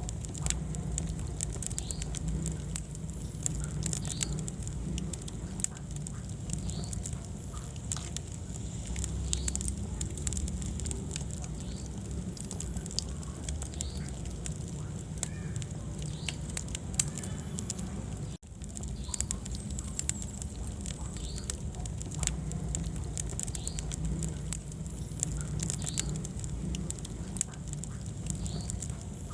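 Wood fire burning in a fireplace: frequent sharp crackles and pops over a low, steady rumble of the flames, with a split-second gap about two-thirds of the way through.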